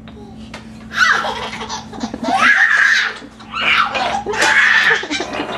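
A baby laughing hard in repeated fits: about a second in, again around two to three seconds, and once more from about three and a half seconds to near the end.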